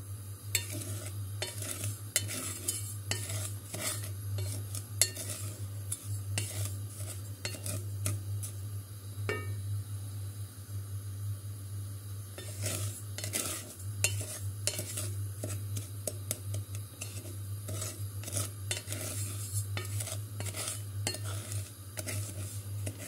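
A spoon stirring and scraping granulated sugar around a pot as it roasts toward caramel on the stove, with frequent irregular clicks of the spoon against the pot over a steady low hum.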